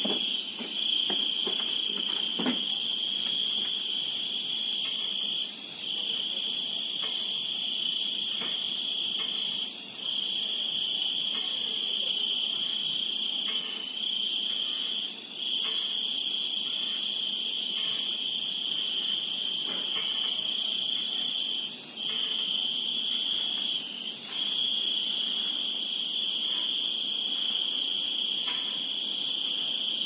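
Night insect chorus of crickets and other insects: a loud, steady high trill that breaks off briefly every few seconds, with a faster pulsing chirring just above it.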